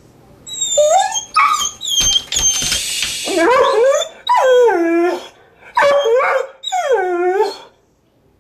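Pet dog whining and howling in a string of about seven drawn-out cries, several dipping and then rising in pitch, agitated at the sight of a raccoon outside. About two seconds in there is a short burst of rough rustling noise.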